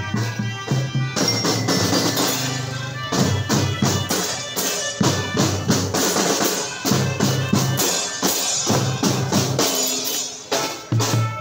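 Marching drum band playing: snare and bass drums beat a steady rhythm under a tune held by pianicas (mouth-blown keyboard melodicas), with glockenspiels chiming in.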